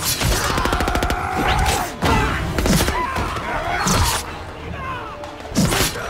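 Action-film fight soundtrack: a burst of rapid automatic gunfire in the first second, then blows, thuds and crashes under a film score, with a loud hit near the end.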